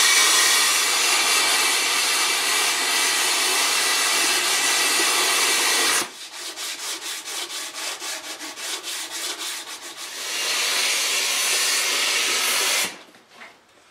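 Shop vacuum with a crevice nozzle running and sucking up sanding dust from a wooden tabletop; it starts abruptly with a steady rush of air. For a few seconds in the middle it drops and flutters rapidly as the nozzle works the surface, then it rushes steadily again and shuts off just before the end.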